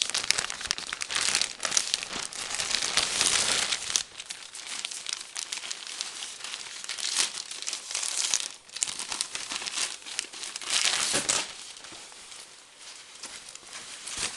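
Packaging crinkling and rustling as jackets are unwrapped from a parcel, loudest in the first few seconds, with another loud rustle about eleven seconds in.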